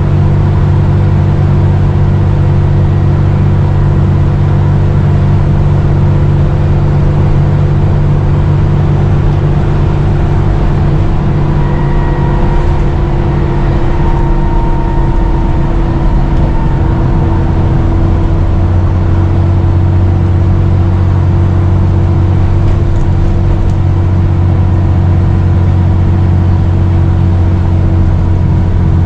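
Dennis Trident 2 / Enviro 400 double-decker bus's diesel engine running steadily under way, a loud drone with a slight turbo whistle; a faint higher tone comes in about halfway through.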